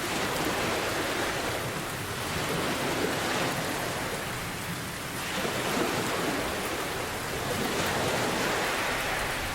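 Steady heavy rain with ocean waves, the hiss swelling and easing every two to three seconds as waves wash in.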